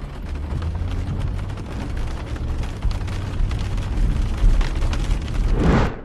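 Wind buffeting an outdoor microphone with a rain-like crackle over a heavy low rumble, swelling briefly near the end and then cutting off suddenly.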